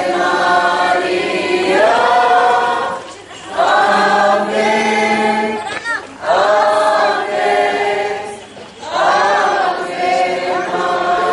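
A crowd of people singing a hymn together in unison as they walk. The singing comes in phrases broken by short pauses.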